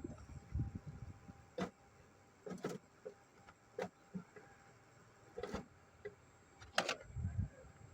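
Scattered light clicks and knocks, about five spread over several seconds, with a low dull thump near the end, as of tools and parts being handled.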